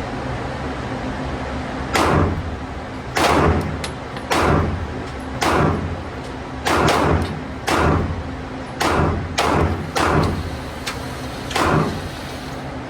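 Gunshots at an indoor shooting range: about ten sharp shots, irregularly spaced and starting about two seconds in, each with a short echoing tail, over the steady hum of the range's ventilation.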